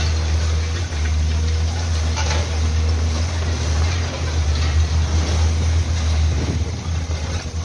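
Excavator demolishing a collapsed concrete building: its diesel engine runs with a steady low drone, with a few faint knocks of breaking concrete and falling rubble.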